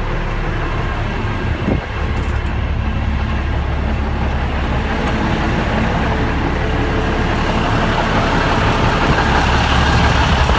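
Atlas Copco MT6020 underground mining truck's diesel engine running steadily at idle, with a deep low rumble. A brief knock comes under two seconds in, and the engine grows slightly louder toward the end.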